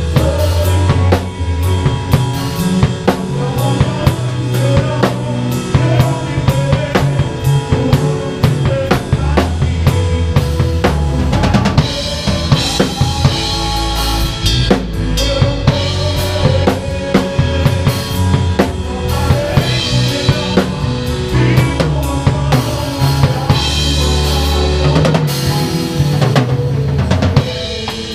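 PDP Concept Maple drum kit played through a song: kick drum, snare with rimshots and Anatolian cymbals, hit steadily throughout, heard close up through a GoPro's own microphone at the kit. Sustained low bass notes from the band run underneath.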